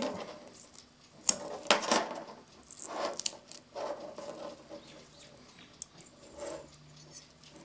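Masking tape being peeled off the cut end of a steel clock mainspring and handled in gloved fingers: scattered soft rustles and crinkles with a few light clicks.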